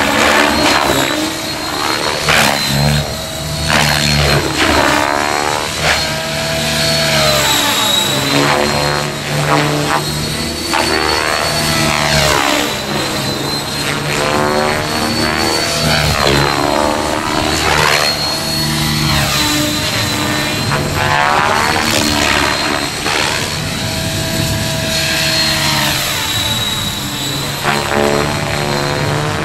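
Align T-REX 700E electric RC helicopter flying aerobatics overhead: rotor blade noise swelling and fading every few seconds as it manoeuvres, over a steady high-pitched whine from its drivetrain, which carries the CNC M1 main drive gear under test.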